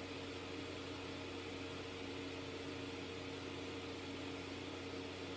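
Steady room tone: a low, even hum with a few held tones and a faint hiss, with nothing starting or stopping.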